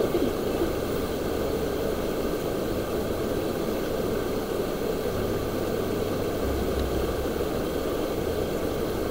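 Shallow stream rushing over rocky rapids: a steady, even rush of water.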